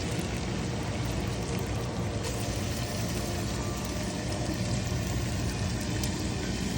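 Ginger sizzling steadily in hot oil in a preheated pot.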